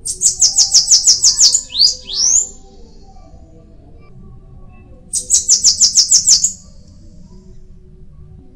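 Bananaquit singing: two high, rapid trilled phrases about three seconds apart, each a fast string of about eight to nine sharp notes a second, the first ending in a couple of slurred notes.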